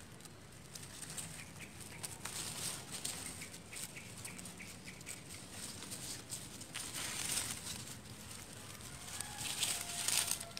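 Dry bamboo twigs, stems and leaves rustling and crackling as a hand pushes through a bamboo clump, in irregular bursts, busiest about two to three seconds in, around seven seconds and near the end.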